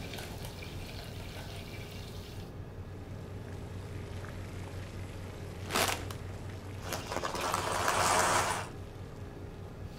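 Dry whole-wheat penne poured from its bag into a pot of boiling water: a rushing rattle lasting about a second and a half near the end, over the steady low bubbling of the pot. A short sharp noise comes a little before the pour.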